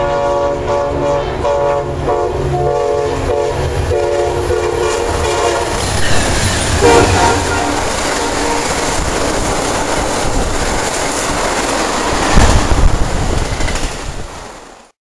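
Amtrak passenger train sounding its multi-tone horn in a series of blasts as it approaches. It then runs past at speed with clattering wheels and rushing noise, with a few loud knocks near the end before the sound cuts off.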